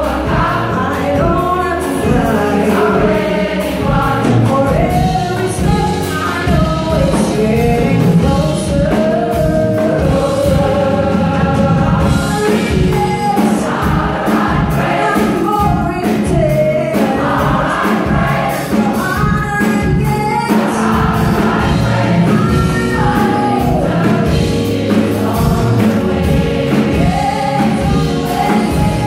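Large gospel choir singing live with a band of drums, electric bass and keyboards, the full choir and band playing continuously at a loud, steady level.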